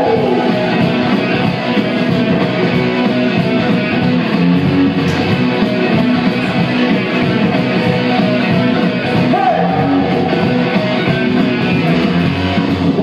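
Live rock band playing loud through PA speakers, with guitar to the fore.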